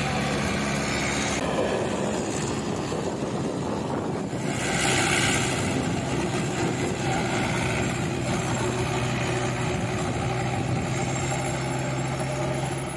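Mahindra Yuvo 475 tractor's four-cylinder diesel engine running steadily under load, driving a rotavator through the soil. A brief louder rush comes about five seconds in.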